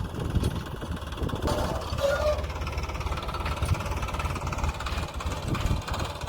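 Heavy diesel engine running steadily, with a fast, even low beat.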